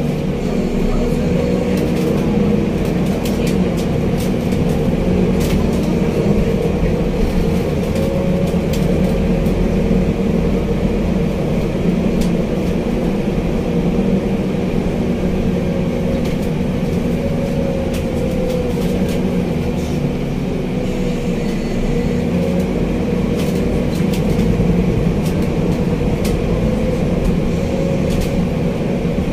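Scania Citywide city bus heard from inside the passenger cabin while driving: steady engine and road noise whose pitch rises and falls gently, with scattered short clicks and rattles.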